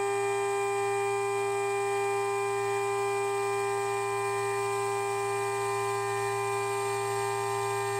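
Water-cooled 1.5 kW spindle running at 24,000 RPM with a single-flute 1/8-inch end mill taking a shallow 0.1 mm facing pass across 6082 T6 aluminium: a steady, unchanging high whine.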